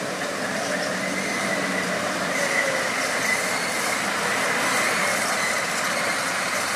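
Off-road 4x4 vehicle working: a steady mechanical rush with a faint high whine held through the middle.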